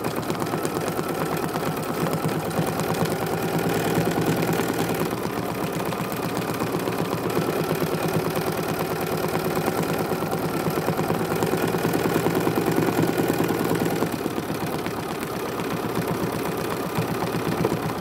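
Bernina sewing machine stitching steadily at speed during free-motion thread sketching, its needle going up and down in a fast, even rhythm.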